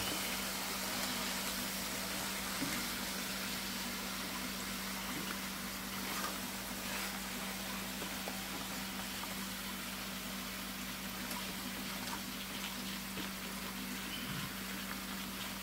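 Pork chops with onions and green peppers sizzling in a frying pan while being stirred with a silicone spatula: a steady hiss with a few light scrapes and taps of the spatula, over a steady low hum.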